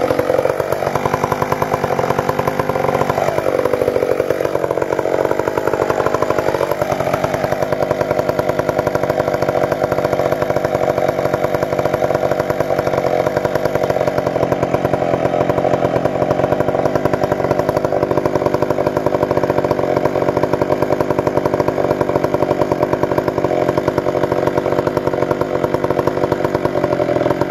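A chainsaw running continuously, cutting into the base of a large standing conifer. Its pitch wavers for the first several seconds, then holds steady in the cut.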